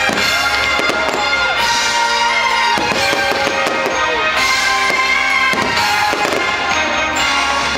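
Fireworks show music playing loud, with aerial fireworks shells bursting over it several times.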